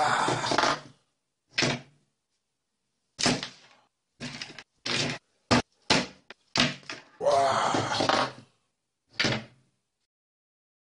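A series of about eleven short knocks and thuds with dead silence between them, two of them drawn out to about a second; they stop about a second and a half before the end.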